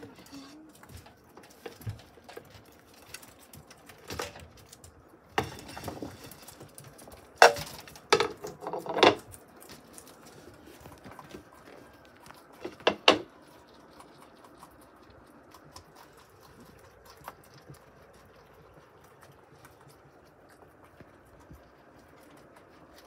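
Guinea pigs and their wire cage making scattered rustles, clicks and knocks. The sounds come in a few louder bursts in the first half, the loudest around eight seconds in, then thin out to faint occasional ticks.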